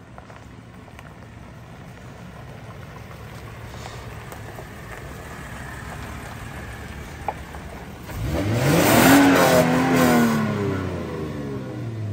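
Toyota Land Cruiser 70 series pickup's V6 engine, a faint low rumble at first, then revved once about eight seconds in. The pitch climbs quickly and settles back down slowly over the next few seconds.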